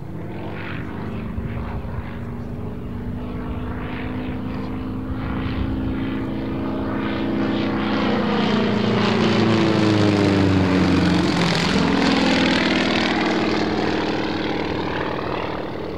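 Yak-52's nine-cylinder Vedeneyev M-14P radial engine and propeller running hard in an aerobatic pass. It grows louder to a peak about two-thirds of the way through, then drops in pitch as the aircraft goes past, and fades.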